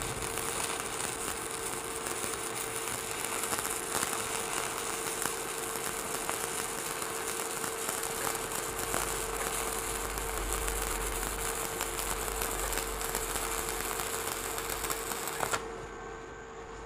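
Stick (manual arc) welding with a Jasic ZX7-200 Pro inverter welder: the electrode's arc crackles and sizzles steadily as the bead is run. The arc burns evenly without breaking, and it is cut off about a second before the end.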